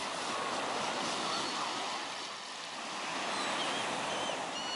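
Small, gentle waves washing onto a sandy beach: a steady hiss of surf that swells and eases. A few faint high chirps come in near the end.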